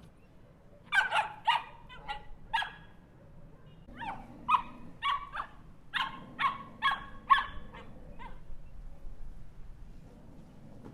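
Small dog barking in two bouts: four sharp barks, a short pause, then a quicker run of about a dozen barks that stops about three seconds before the end.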